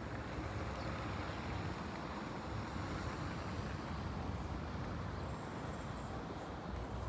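City street traffic: a steady noise of passing vehicles, a little louder in the middle.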